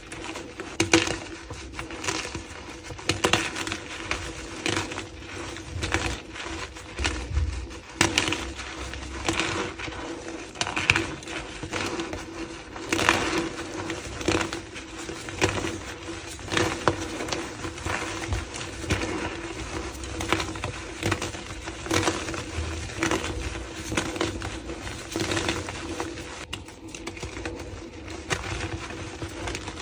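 Blocks of gym chalk being squeezed and crumbled, a steady run of irregular crunches and crackles, with a faint steady hum beneath.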